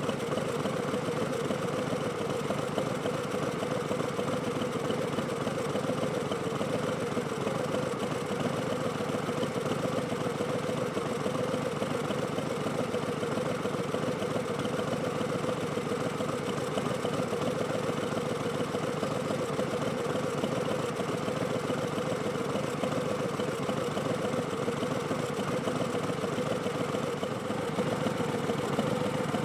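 2019 Harley-Davidson Street Bob's Milwaukee-Eight 107 V-twin running steadily through V&H Twin Slash slip-on exhausts, at an even pitch with no revving.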